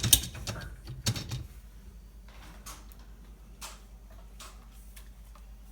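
Dishwasher racks being slid out on their rails: a sharp click at the start, another knock about a second in, then scattered light clicks and rattles.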